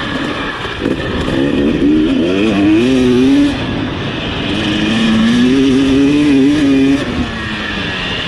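Husqvarna TC250 two-stroke motocross engine at full throttle, heard from an onboard camera. The revs climb, drop sharply about halfway through, climb again and fall off near the end.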